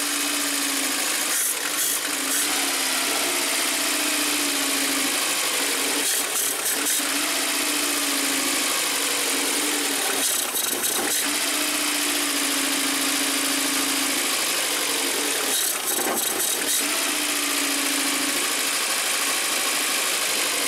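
Carburetted four-cylinder engine of a VAZ-2110 running unevenly, its sound changing every four to five seconds. It is starved of fuel, which the mechanic suspects comes from clogged fuel jets in the carburettor.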